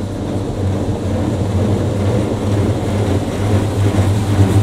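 Touchless car wash at work, heard from inside the car's cabin: high-pressure water spraying against the car, with a steady low hum underneath. It grows steadily louder as the wash goes on.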